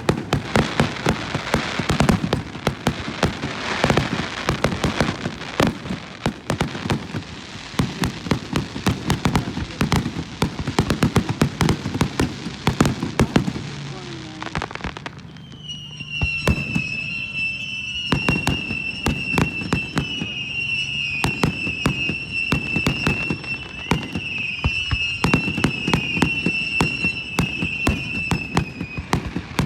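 Fireworks going off in rapid succession, a dense run of bangs and crackles. About halfway through, a steady high whistle starts over the bangs and holds until near the end.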